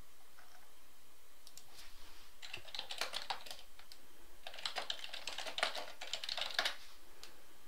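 Typing on a computer keyboard: two quick runs of key clicks, the first about two seconds in and the second about four and a half seconds in, each lasting around two seconds.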